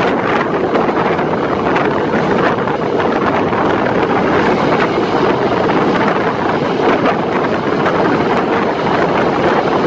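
Jayakarta Premium passenger train running at speed: a loud, steady rushing rumble of wheels on rail and passing air.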